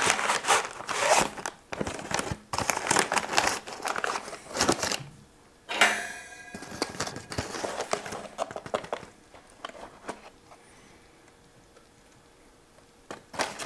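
A packet of cornstarch being torn open and its paper crinkled, a dense run of crackles over the first five seconds. About six seconds in comes a short ringing clatter, then only faint small handling sounds.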